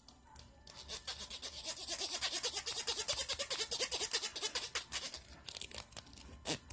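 A hairbrush raked quickly through long hair close to the microphone, a fast run of scratchy bristle strokes, with one sharper, louder stroke near the end.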